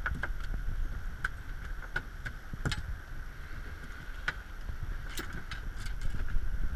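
Small boat rocking on open water: a steady low rumble of water against the hull, with scattered light clicks and knocks, about half a dozen, as a fish is handled in the landing net on the deck.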